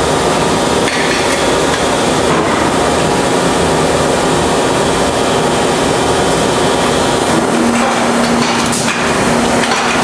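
Steady, loud din of die-casting plant machinery, with a few sharp clanks of metal castings being handled at the press. A low steady hum joins in near the end.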